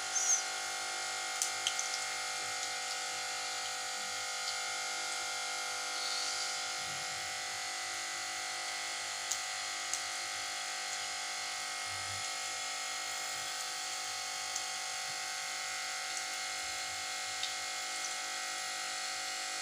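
Besan-coated potato patties (aloo tikki) sizzling as they shallow-fry in hot oil in a non-stick frying pan, over a steady buzzing hum. A brief louder burst comes just after the start as a patty is lowered into the oil, and a few light clicks follow.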